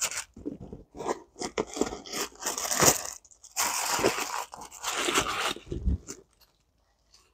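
White tissue stuffing paper crinkling and rustling as it is pulled out of a leather handbag, in uneven bursts that stop about six seconds in.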